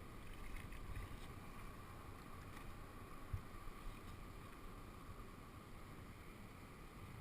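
Faint open-air ambience on the water: a low, steady wind rumble on the microphone, with one soft knock about three seconds in.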